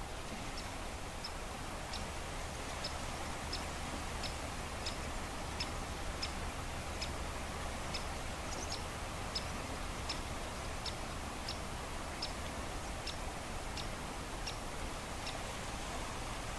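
Steady wash of a calm Baltic Sea, with a short, high tick repeating evenly about every 0.7 seconds.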